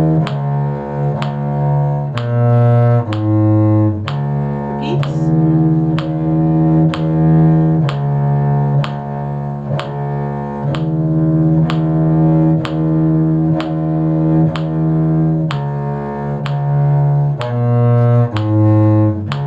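Cello playing a bass line in long bowed notes that change about every second, over a steady metronome click about every two-thirds of a second.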